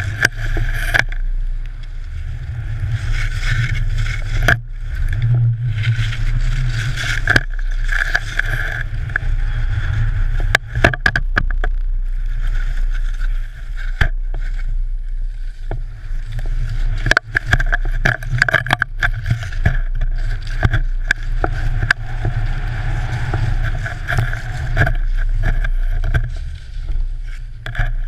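Skis hissing and carving through powder snow over a steady low rumble of wind on a GoPro Hero3's microphone, with scattered knocks and clicks throughout.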